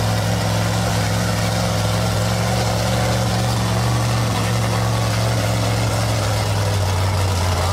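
Lifted mud truck's engine running at a steady low pitch as the truck crawls through a deep mud pit on paddle tires; the engine note drops slightly about seven seconds in.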